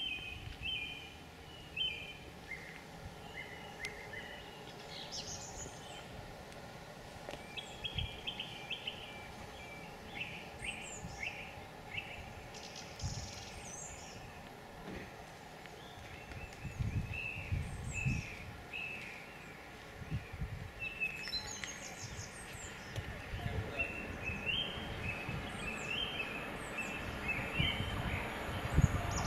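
Several songbirds singing and chirping in short, varied phrases, with irregular low rumbles underneath and a hiss that grows louder near the end.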